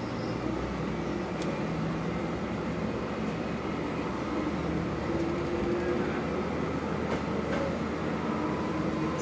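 Diesel railcar running along the track, its drive making a whine that rises slowly in pitch over a steady rolling rumble, with a few faint clicks from the wheels.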